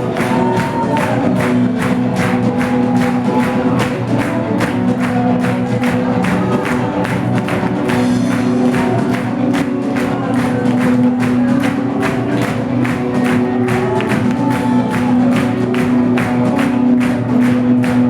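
Live worship music: a band playing a steady, even beat under held chords, with voices singing over it.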